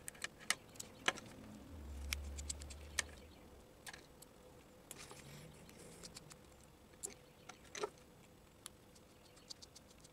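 Faint, scattered clicks and taps of a small plastic Emax RC servo case being handled and pried apart with a small screwdriver. There is a brief low rumble about two seconds in.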